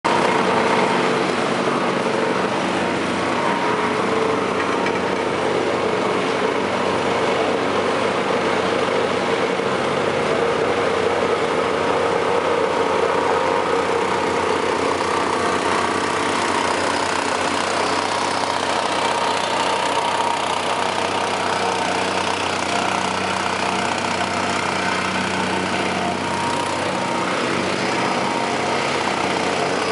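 Diesel engine of an asphalt paver running steadily at constant speed while the machine lays asphalt.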